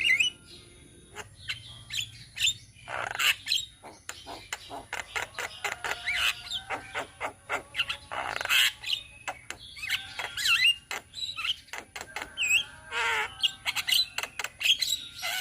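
A group of Javan mynas (jalak kebo) calling together: a dense, overlapping chatter of short chirps, whistled up-and-down glides and harsh squawks, with no pause.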